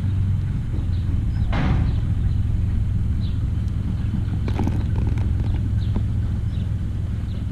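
Steady low engine rumble, with a few short knocks and clatters about a second and a half in and again near the middle.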